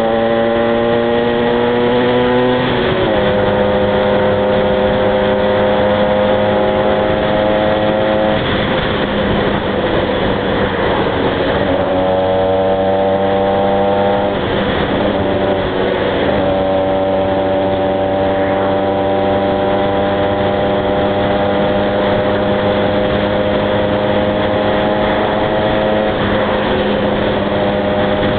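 Two-stroke motorcycle engine, a Honda NSR 125R, pulling through the gears while riding. Its pitch climbs slowly in each gear and drops at the upshifts, once a few seconds in and again about halfway. In between are stretches of rushing wind noise.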